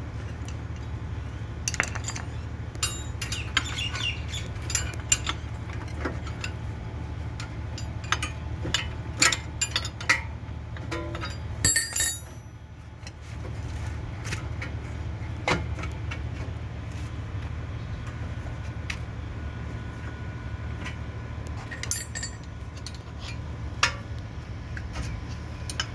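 Metal tools and parts clinking and knocking at irregular intervals during work on a car's bearing replacement, over a steady low hum.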